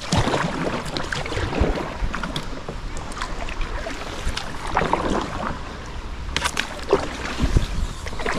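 Kayak paddles splashing in the river water in irregular strokes, with wind rumbling on the microphone.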